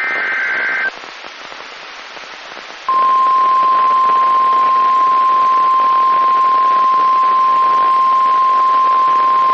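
NOAA Weather Radio emergency alert over radio static: a short burst of warbling SAME header data ends about a second in, then a couple of seconds of hiss. About three seconds in, the steady 1050 Hz warning alarm tone starts and holds, the signal that a new warning is about to be read.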